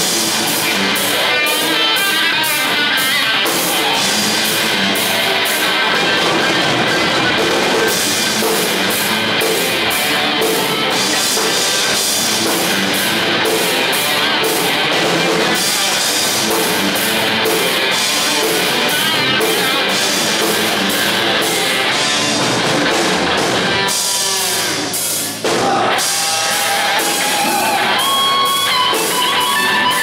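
Live instrumental heavy metal played by a trio of distorted electric guitar, electric bass and drum kit, with steady cymbal hits. The band breaks off for a moment near the end, then comes back in.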